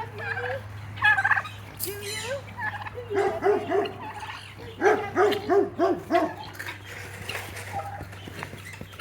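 Turkey gobbling several times, each call a quick run of warbling notes.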